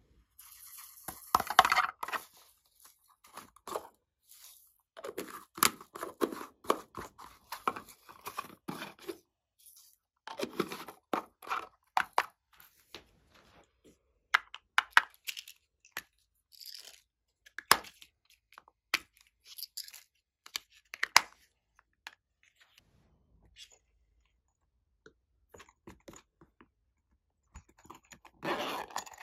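Close-up handling of small plastic glitter containers: crinkling and crackling in short bursts as glitter is shaken out, with several sharp clicks of lids and quiet gaps between.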